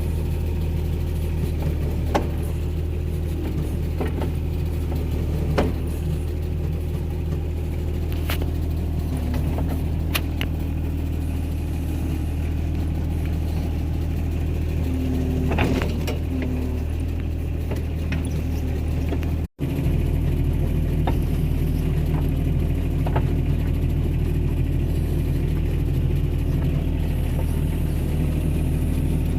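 Excavator's diesel engine running steadily, with a scattering of sharp knocks through the first half. Near two-thirds through the sound drops out for an instant, then the engine carries on.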